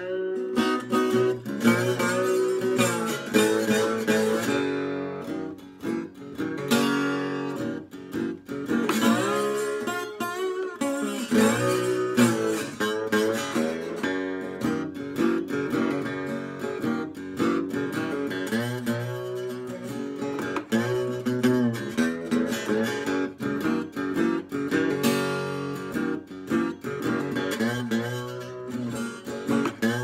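Old German parlor acoustic guitar played bottleneck style with a metal slide: fingerpicked blues, with notes gliding up and down in pitch between the plucked strings.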